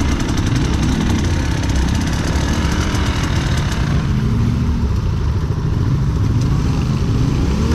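Enduro motorcycle engine running under way off-road, its revs rising and falling several times as the throttle is worked.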